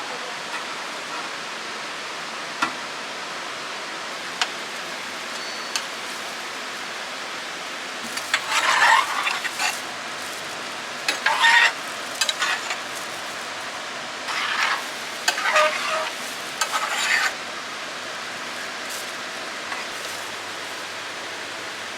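Food cooking with a steady sizzling hiss, and several louder bursts of stirring and scraping between about 8 and 17 seconds in.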